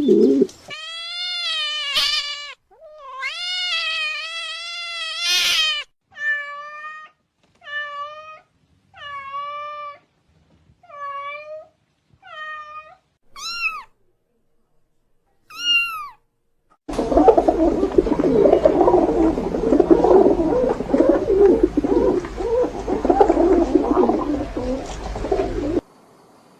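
A cat meowing over and over, about ten drawn-out, high, arching calls with gaps between them. After that, a dense jumble of noise with a low hum runs for about nine seconds and then cuts off.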